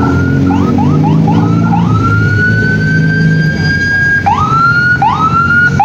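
Electronic siren of a race escort vehicle: several short rising yelps, then one long slowly rising wail of about two seconds, then quick rises again near the end, with a vehicle engine running underneath. It signals that the race convoy is approaching.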